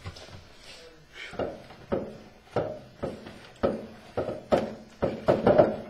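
Repeated thumps, about two a second, starting about a second and a half in and growing louder toward the end: hands shoving a rubber fuel-cell bladder down into a sheet-metal fuel cell can.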